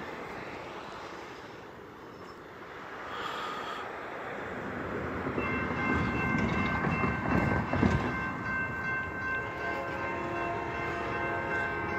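Approaching Amtrak locomotive's air horn sounding a steady multi-note chord. It comes in about five and a half seconds in and holds, growing fuller as the train nears, over a low rumble that swells.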